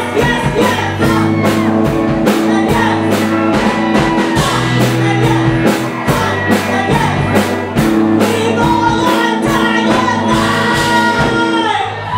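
Live rock band playing, with electric guitar, electric bass and drums under a woman singing into a microphone. The drum hits stop just before the end as the song finishes.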